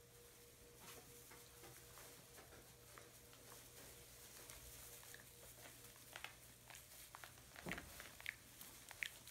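Faint rustling and light patter of puppies' paws moving about on loose straw, with a few sharper crackles near the end.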